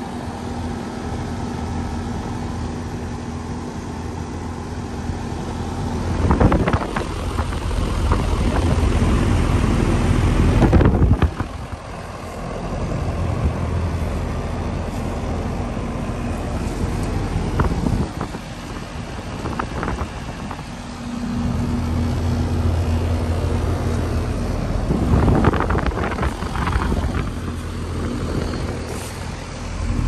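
Trane XE1200 air conditioner outdoor unit running after startup: a steady compressor hum under the rushing noise of the condenser fan. There are a few louder surges, the biggest about six and ten seconds in.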